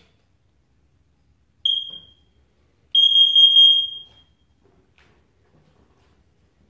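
Plug-in carbon monoxide alarm sounding: a short high-pitched beep, then a longer, louder beep about a second later at the same pitch.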